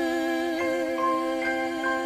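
Gentle song accompaniment with no singing: a held chord, with a few higher notes coming in one after another as the song ends.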